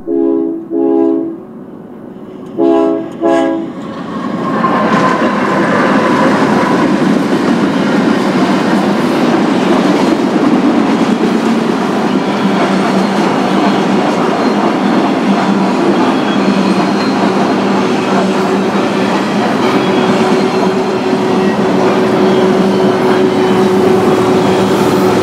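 Freight locomotive's air horn sounding four short blasts in two pairs, then the train passing close: a steady rumble and clatter of wheels on rail as a string of autorack cars rolls by, with a faint steady whine in the second half.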